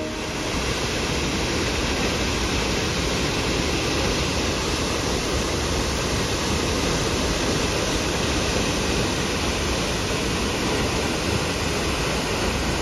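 Steady rushing of a large waterfall pouring over a rock ledge into a churning plunge pool, an even wash of noise with no break.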